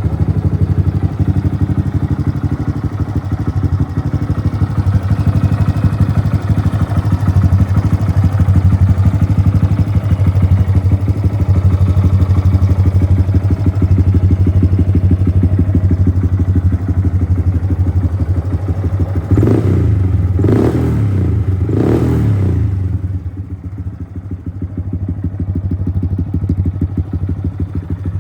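Honda Grom's single-cylinder four-stroke engine idling through a T-TECH aftermarket exhaust, with three quick throttle blips about two-thirds of the way through before it settles back to a softer idle. It runs without any abnormal noise.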